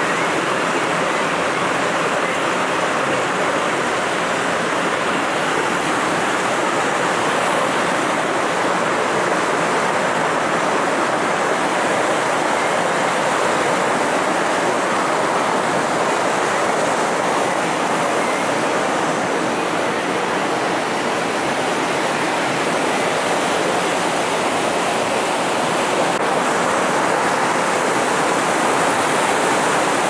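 A small rocky stream rushing and cascading over stones, giving a steady wash of running water.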